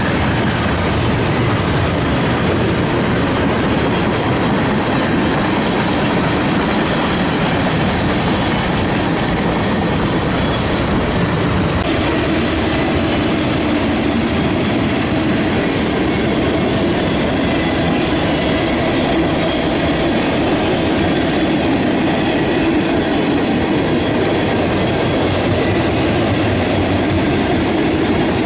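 Freight train cars rolling past at speed: a steady rumble of steel wheels on rail with clickety-clack over the rail joints.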